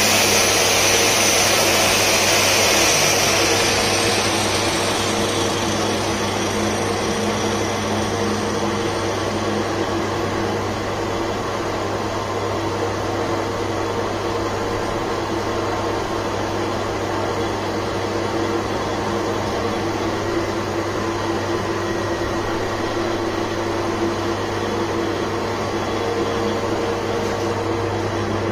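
Manual lathe running under power with its tool cutting a spinning workpiece: a steady motor and drive hum under a hissing cutting noise, which is loudest for the first few seconds and then eases to a steadier level.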